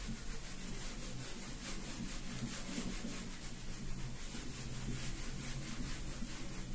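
Marker writing being wiped off a whiteboard with a bare palm: a faint, steady back-and-forth rubbing.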